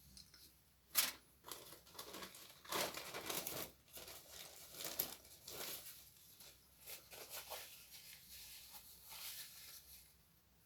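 Irregular crisp crackling and tearing of a flaky croissant being pulled apart and bitten, close to the microphone, with one sharp crackle about a second in and denser bursts around three and five seconds.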